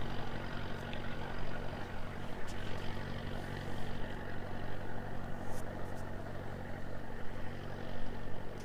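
An engine running steadily at one pitch, an even low drone, with a few faint clicks over it.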